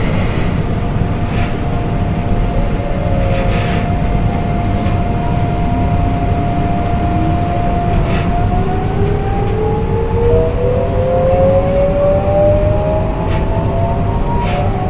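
Double-deck electric train's VVVF traction inverter whining as the train pulls away and accelerates. A steady tone gives way about eight seconds in to several tones rising together in pitch, over the low rumble of the running gear, heard inside the carriage.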